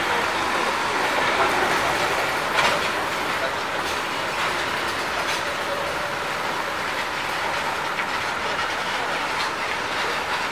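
Steady noise of heavy trucks and road traffic passing, with a few short clatters.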